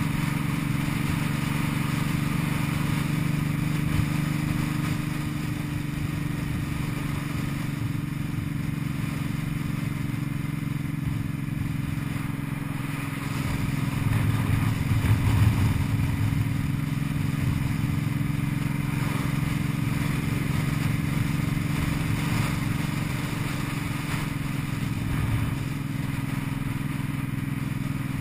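Cruiser motorcycle engine running steadily while riding, swelling louder for a couple of seconds about halfway through.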